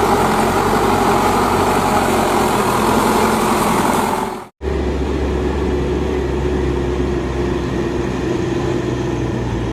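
Heavy-vehicle engine sound running steadily. It fades out about four and a half seconds in and cuts to a steadier, deeper engine idle.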